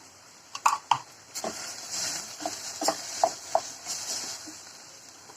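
A metal spoon knocking, clinking and scraping against cookware while tomato paste is worked into sautéed onions: a few sharp knocks a little over half a second in, then a run of clinks and scrapes for about three seconds.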